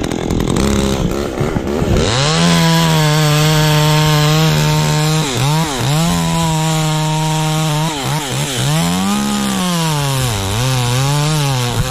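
Two-stroke chainsaw cutting wood at full throttle: a high, steady engine note that drops in pitch several times as the chain bogs in the cut, then climbs back. For the first two seconds the engine runs lower and unevenly before going to full revs.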